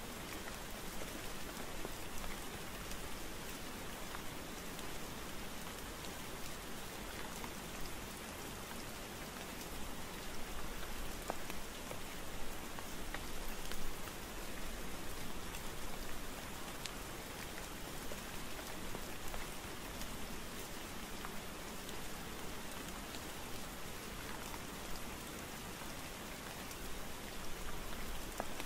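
Steady rain falling: an even hiss with scattered louder drops ticking through it.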